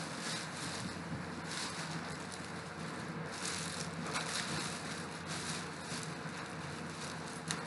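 Thin plastic wrapping crinkling and rustling on and off as a large bagged item is gripped and lifted.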